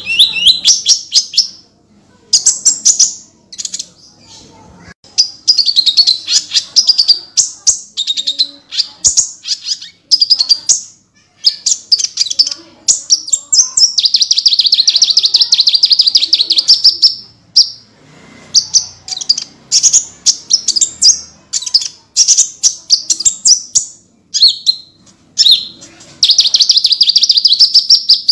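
A kolibri ninja (konin) sunbird singing loudly and without pause: fast, high chirping trills and rapid strings of notes, with long unbroken trills in the middle and near the end.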